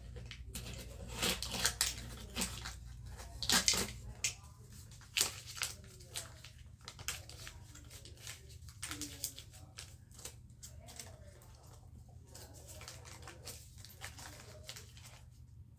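Small objects being handled at close range: a run of clicks, taps and rustles, busiest and loudest in the first few seconds, then fainter and more scattered.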